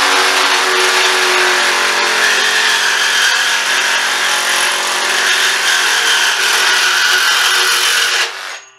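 Hercules 20V brushless cordless reciprocating saw cutting through a metal bar: a loud, steady rasping buzz of the blade stroking through the metal, which stops abruptly about eight seconds in as the piece is cut off.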